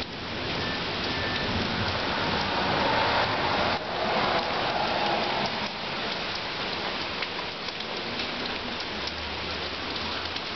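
Rain falling steadily in a thunderstorm, an even hiss of rain hitting surfaces.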